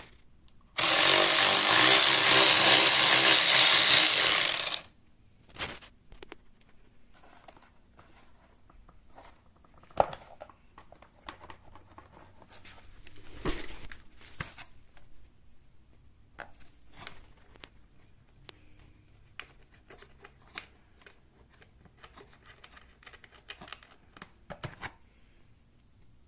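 Power ratchet running for about four seconds, spinning a bolt out of the motorcycle's airbox mounting, followed by scattered light clicks and knocks of tools and parts being handled.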